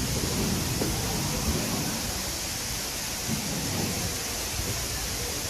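Steady rushing of falling water from a large man-made waterfall, an even unbroken noise with a low rumble underneath.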